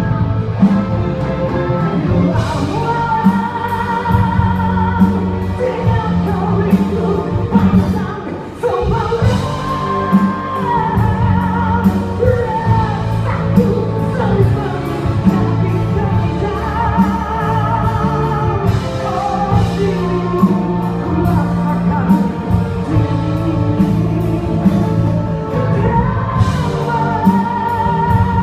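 A pop song: a singer holds wavering notes over a band with a steady drum beat.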